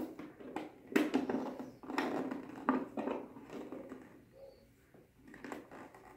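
Hard ABS plastic helmet shell handled and pressed together by hand: scattered knocks and rubbing of the plastic, around one, two and three seconds in and again near the end.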